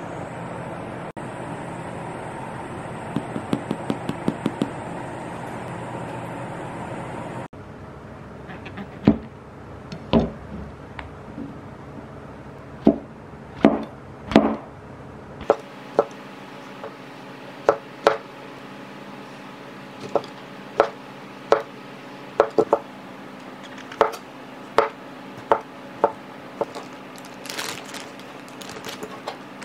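Knife chopping on a cutting board: single sharp knocks at an uneven pace, about one every half-second to a second. Before them, for the first several seconds, there is a steady hum with a quick run of ticks, which cuts off suddenly.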